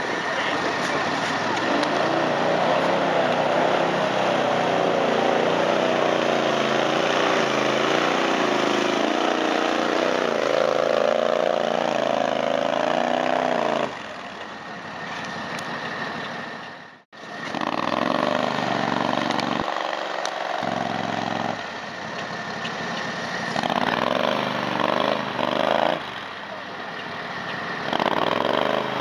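Small engines of 6x6 amphibious skid-steer ATVs running through deep mud, the pitch wavering up and down with the throttle. In the second half there are several short swells of revving as a machine stopped in soft mud is worked to get free.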